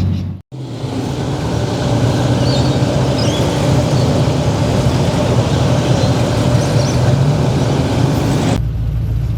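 Car engine running steadily with a low hum amid street traffic noise, broken by a brief drop-out about half a second in.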